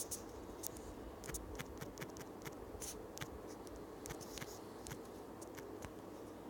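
Typing on a smartphone's on-screen keyboard: a run of light, irregular clicks over a faint steady hiss.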